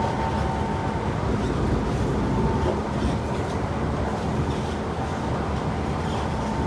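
Kawasaki C151 MRT train running along the line, heard from inside the passenger car: a steady rumble of wheels on rail with faint clicks now and then.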